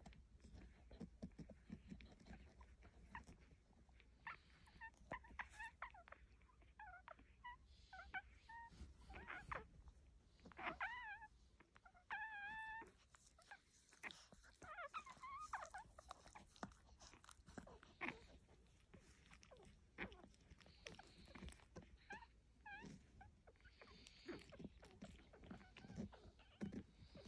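Five-day-old puppies suckling at their mother, with faint wet clicking throughout and a run of short, high squeaks and whimpers in the middle.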